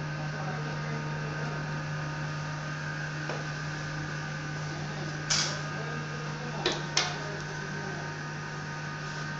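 Steady electrical hum of running lab equipment, an XRF gold analyzer and its computer, with three short clicks about five and seven seconds in.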